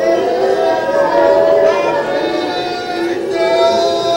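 Soft worship music under a pause in the preaching: several long-held notes that overlap and slide slowly, like voices or a keyboard pad.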